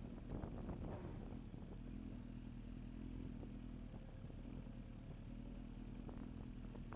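A vehicle engine running steadily with a low hum, with some light clattering in the first second and again near the end.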